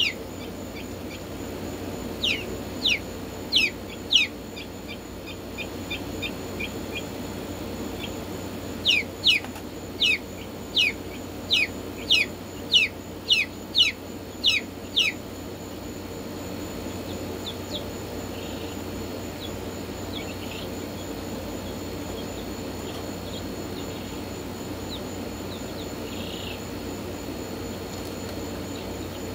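Chicks peeping loudly in runs of sharp, downward-sliding peeps, about two a second: a short run in the first few seconds and a longer one from about nine to fifteen seconds in. Under them is a steady low hum, and after the peeps stop only the hum and a few faint chirps are left.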